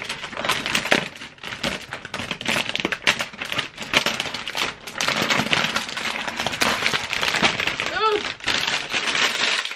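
Clear plastic protective film from a new iMac's screen crinkling and crackling as it is pulled away and handled, a dense run of tiny crackles throughout.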